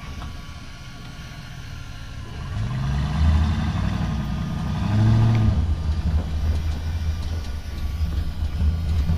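A vehicle engine running with a low steady hum, revving up and back down twice, once about two and a half seconds in and again about five seconds in.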